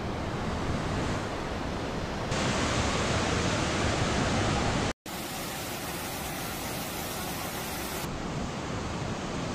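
Waterfall and mountain-river rapids rushing: a steady, even wash of falling and tumbling water. It cuts out for a split second about halfway through, then carries on.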